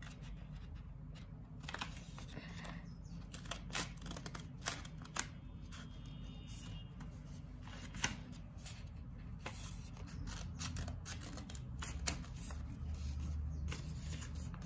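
Scissors cutting through folded thick paper: a run of irregular, short snips and paper handling.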